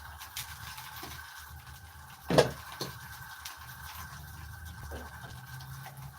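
Over a steady low hum and light clicking, a sharp knock of a cooking utensil against a pan sounds about two and a half seconds in, followed by a softer knock just after.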